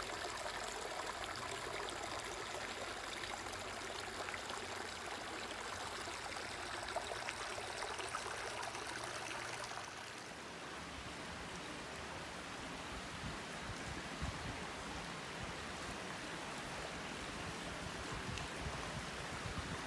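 Shallow creek water running and trickling over rocks in a steady rush. About halfway through the flow sounds duller and an irregular low rumble comes in.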